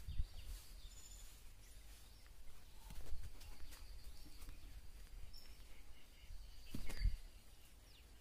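Outdoor rural ambience: a few short bird chirps over a steady high whine, with low rumbling bumps on the microphone that are loudest about three and seven seconds in.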